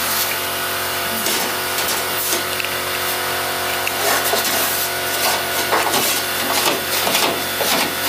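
A power tool working the car's sheet-steel boot floor: a steady motor hum under a gritty hiss with irregular sharp crackles, growing busier about halfway through.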